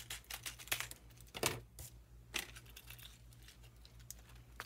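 Scissors cutting open a stiff plastic lure pack: sharp snips and crackling, crinkling plastic, loudest about a second and a half in and quieter after about three seconds, over a low pulsing hum.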